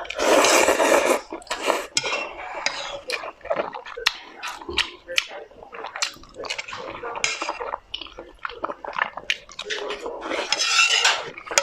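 Eating utensils clicking and clinking against bowls and dishes, many short sharp knocks, with a louder rushing noise in the first second and again near the end.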